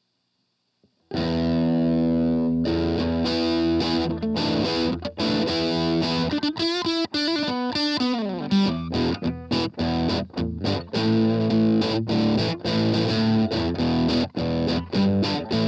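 Ibanez RG550 electric guitar played through an MXR Custom Badass '78 Distortion pedal. After about a second of silence, a distorted chord rings out, followed by chopped, rhythmic chords and riffs. Midway the pitch sweeps downward.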